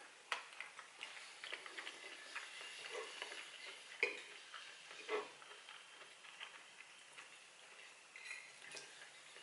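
A metal fork clinking and scraping against a bowl while food is picked up, with quiet chewing. The sharpest clinks come about four and five seconds in.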